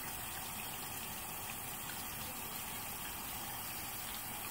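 Warm water running steadily from a tap into a sink as it fills.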